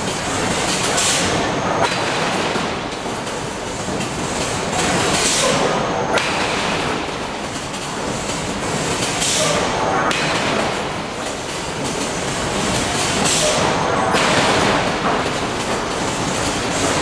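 Loud, steady machinery noise from a steel-forging shop's hydraulic hammer equipment. A high hiss swells and cuts off sharply about every four seconds.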